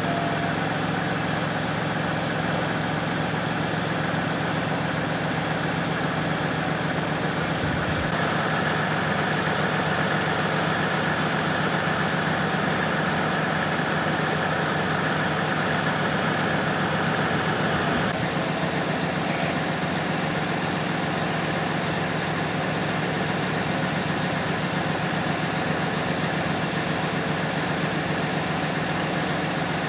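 A vehicle engine idling: a steady, unchanging low hum.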